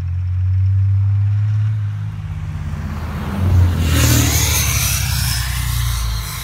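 Ram 2500 pickup truck engine revving up hard about three and a half seconds in as the truck accelerates past. A loud rush of noise with a falling whine follows as it pulls away.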